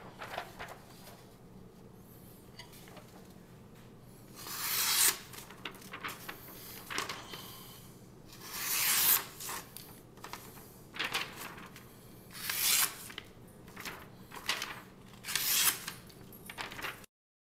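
A freshly stropped, convex-edged Horton knife slicing through a sheet of paper in several strokes, each a short hissing rasp, the loudest coming about every three to four seconds. This is a paper-cutting test of the edge's sharpness.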